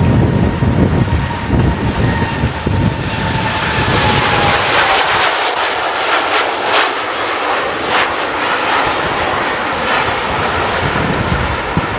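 A Boeing 787's twin turbofan engines at takeoff thrust as the airliner rolls, lifts off and passes. A deep rumble and a fan whine that drops slightly in pitch give way, about four seconds in, to loud crackling jet noise that eases toward the end.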